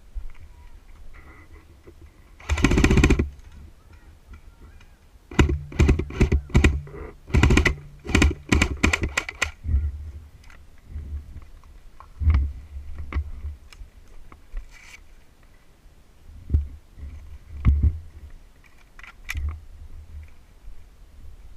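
Airsoft guns firing in short rapid bursts, a quick rattle of shots about two and a half seconds in and several more bursts with a low motor hum from about five to nine and a half seconds, then scattered single clicks and low thumps.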